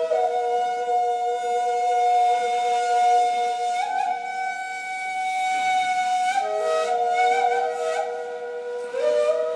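Two neys, end-blown reed flutes, playing a joint improvised taksim in Ottoman classical style: two long held notes sound together, each stepping to a new pitch a few times, with an airy, breathy tone.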